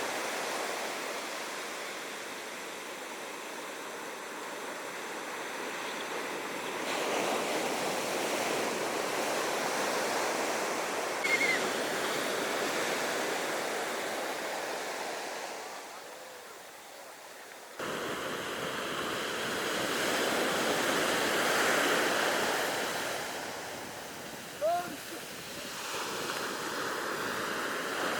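Ocean surf washing onto a beach, swelling and fading over several seconds. Two brief high-pitched calls stand out, at about 11 seconds and about 25 seconds in.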